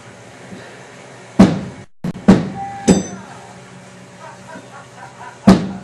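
Hammer blows on flooring being fitted: four sharp knocks, the first about a second and a half in, two more close after it, the third with a short metallic ring, and a last one near the end.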